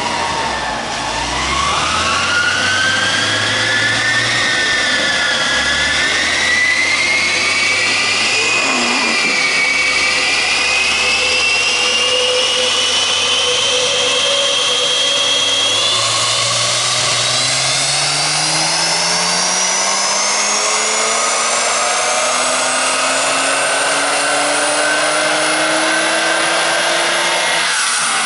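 BMW 135i's turbocharged straight-six under full load on a chassis dyno, mixed with a loud whine from the dyno rollers, both rising steadily in pitch for most of half a minute. Near the end the pitch drops away sharply as the pull ends.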